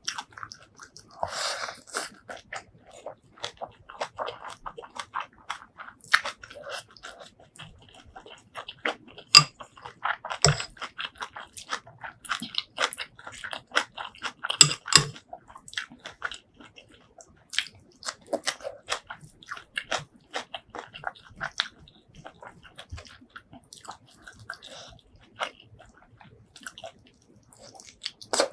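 A person eating close to the microphone: chewing and biting with a steady run of wet, crunchy clicks, now and then a louder bite.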